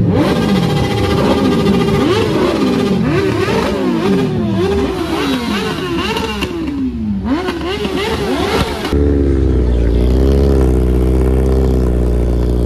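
A superbike engine revved hard through a loud exhaust in repeated throttle blips, each a quick rise in pitch and a slower fall, about a dozen in nine seconds. About nine seconds in, the sound changes suddenly to a steady engine note held at high revs, wavering slightly.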